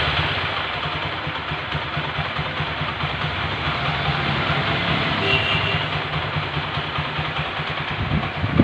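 TVS Apache 4V motorcycle's single-cylinder four-valve engine idling steadily with an even pulsing beat, its tappets freshly adjusted to cure a ticking valve noise.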